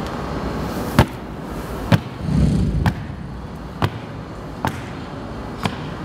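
Six sharp knocks, spaced about a second apart, with a short low hum about two seconds in.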